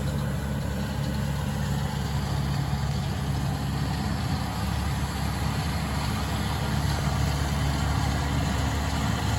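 An engine running steadily at an even speed, a low, constant hum that grows slightly louder about seven seconds in.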